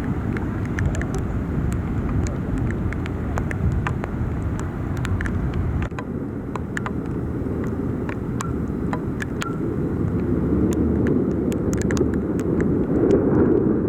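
Steady low rumble of a car on a flooded street in torrential rain, with scattered sharp taps, likely raindrops. The rumble swells louder over the last few seconds.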